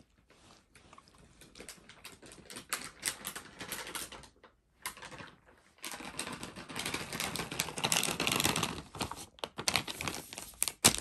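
A cat chewing soft meat dog treats, a string of small wet clicks and smacks. From about six seconds in come louder, denser crackles, fitting the foil treat packet being handled and crinkled.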